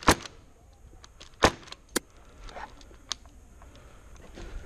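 Airsoft gunfire: four sharp single cracks at uneven intervals. The loudest come right at the start and about a second and a half in, and there is a quieter one about three seconds in.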